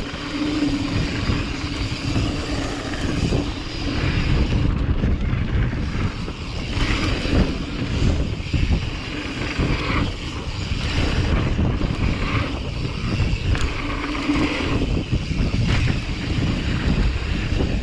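Wind buffeting the microphone and mountain-bike tyres rolling over a dirt jump line, with scattered knocks as the bike goes over bumps and lands.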